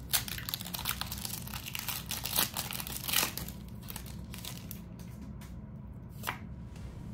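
Foil Pokémon booster pack wrapper crinkling and tearing as it is handled and opened, busiest over the first three and a half seconds, then quieter handling and one sharp click near the end.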